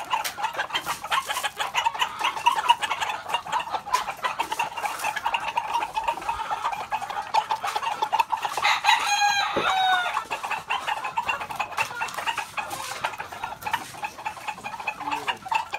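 Roosters clucking continuously, with one rooster crowing once about halfway through: a crow of a little over a second that drops in pitch at the end.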